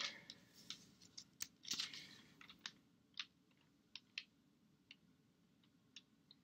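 Faint handling of a hardcover Bible's pages: a brief soft paper rustle at first, then scattered light clicks and ticks.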